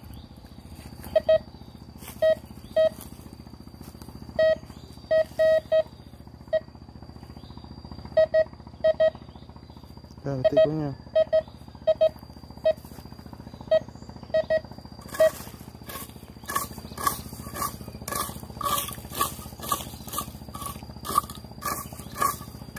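Metal detector signalling targets as it is swept over the ground: short beeps at irregular intervals, then from about fifteen seconds in a higher-pitched beep repeating about twice a second. A faint steady high tone runs under it.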